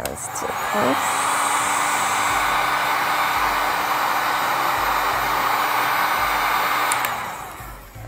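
Heat gun running steadily, blowing hot air over liquid resin in a silicone keycap mold to pop air bubbles: an even rushing of air with a faint steady hum, dying away near the end.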